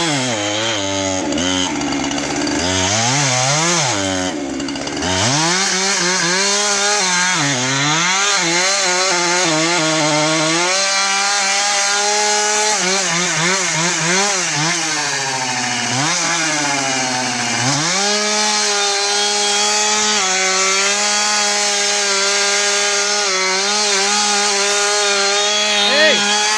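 Chainsaw cutting into a tree trunk. The engine revs up and down several times, then holds at a steady high speed through a long cut for about the last third.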